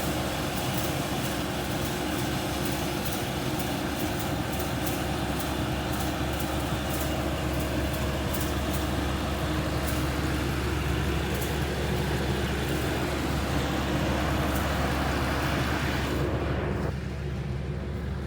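Rice combine harvester running under load: a steady engine drone with a rushing, rattling mechanical noise over it. About 17 seconds in, the higher rushing noise drops away suddenly, leaving a lower engine hum.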